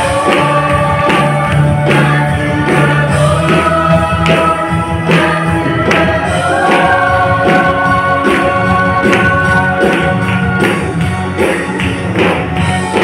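A small women's choir singing a gospel song in harmony over an instrumental accompaniment with a steady beat, holding long notes through the middle.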